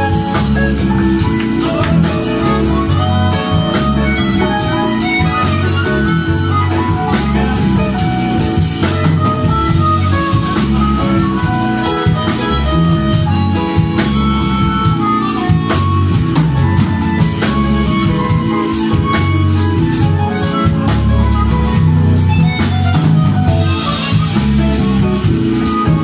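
Live jazz band playing: harmonica lead over electric bass, hollow-body electric guitar and drum kit, with a steady beat.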